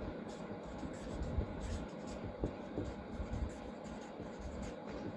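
Red felt-tip marker scratching on paper in short repeated strokes as hatching lines and handwriting are drawn, over a steady low background rumble.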